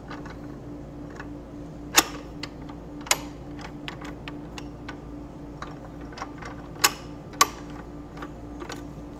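Metal-on-metal clicks and clunks as a piece of steel angle iron and V-shaped clamp adapters are set into a miter saw's vise and the clamp screws are adjusted. Four sharper knocks stand out among lighter ticks, over a steady low hum.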